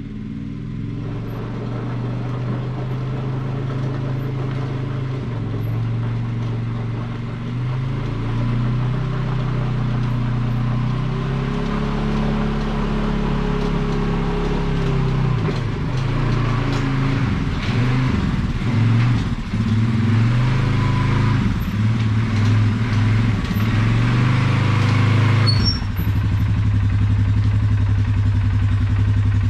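Polaris 570 quad's engine running as it pulls a pickup truck into the shop, getting louder as it comes closer. Its note rises and falls with the throttle in the middle, then holds steady near the end.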